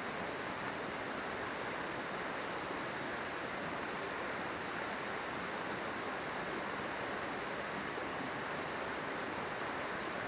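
Steady rushing of a river flowing over rocks, with a few faint crackles from a campfire.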